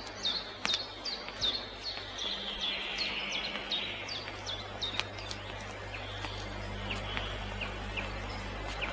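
Bird chirping: a short, high, falling chirp repeated about twice a second, thinning out near the end, over a faint hiss.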